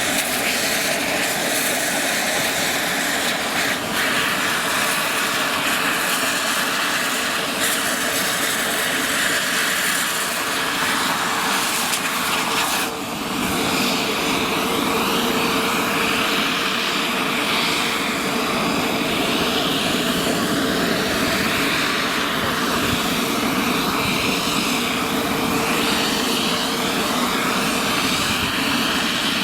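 Mi-28 attack helicopter running close by: its turbine engines and main rotor make a steady, loud whine and blade whistle, with a short dip in level about 13 seconds in.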